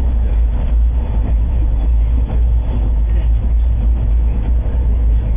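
Passenger train running at speed, heard from inside the carriage by an open window: a steady, loud low rumble of wheels on track.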